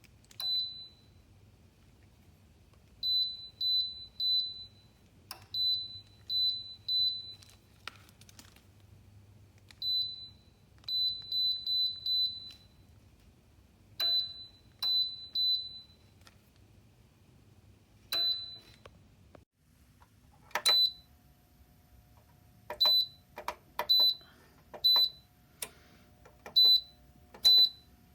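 Short high electronic beeps, each with a small click, in runs of two to four, like buttons being pressed on an appliance's control panel. A faint steady hum comes on about twenty seconds in.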